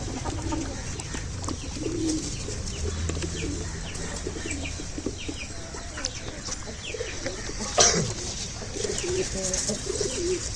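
Domestic pigeons cooing over and over, with small birds chirping and a single sharp knock about eight seconds in.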